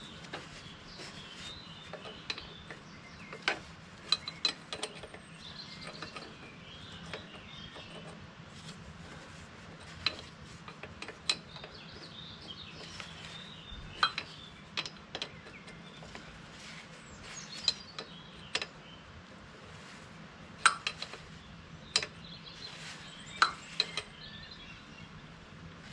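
Irregular metallic clinks, taps and knocks of hand tools and hose fittings while new hydraulic hoses are fitted on a backhoe, with birds chirping in the background.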